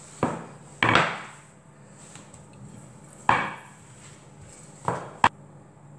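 Wooden rolling pin rolling dough thin on a wooden board. There are four strokes, each a sudden knock that fades over a moment, then a sharp click near the end.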